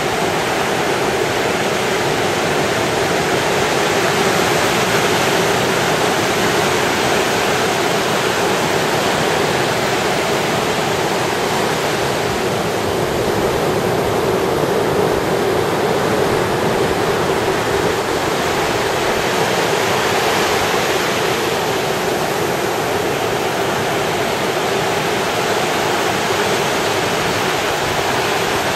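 Sea surf on a beach: a loud, steady wash of breaking waves with little rise and fall.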